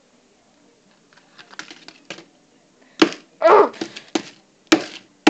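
Handling noise: irregular clicks, knocks and rustles as a phone is moved about close to its microphone, sparse at first and louder from about three seconds in, with a sharp click near the end.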